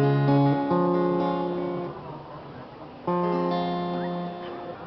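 Acoustic guitar playing slow strummed chords, each left to ring and fade. A new chord is struck about a second in and another about three seconds in.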